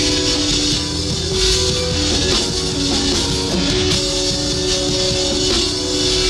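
Live rock band playing an instrumental passage: drum kit and guitar with steady held notes, no vocals.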